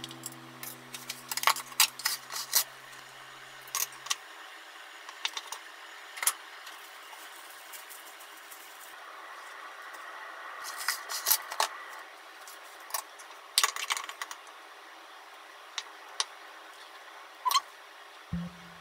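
Kitchen handling sounds: scattered sharp clinks and taps of a ladle, bowls and a ceramic pot lid being handled, over a steady hiss. Soft music fades out about four seconds in.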